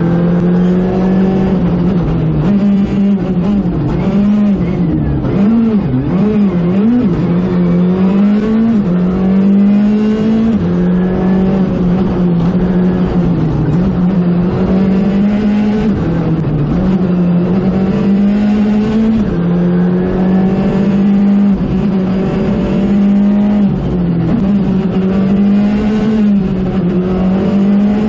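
Skoda Fabia R5 rally car's turbocharged four-cylinder engine, heard from on board, running hard at high revs at full attack on a special stage. The pitch drops and climbs again several times as the car lifts, shifts and accelerates between corners, with a quick run of dips and rises about five to seven seconds in.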